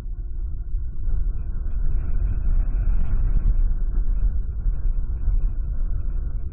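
Wind gusting across the nest-cam microphone: a steady low rumble that swells through the middle.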